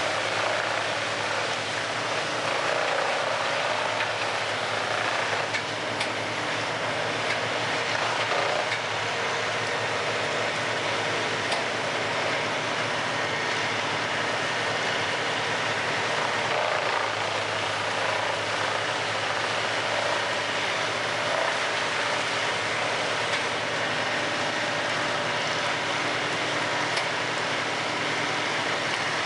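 Large industrial wood chipper running steadily: a constant, dense machine noise with an engine drone beneath it.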